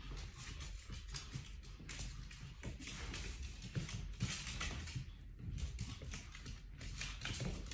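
Soft rustling and scuffling with scattered small taps as a Pomeranian puppy tussles with a socked foot and plush toys, its paws tapping on a wooden floor.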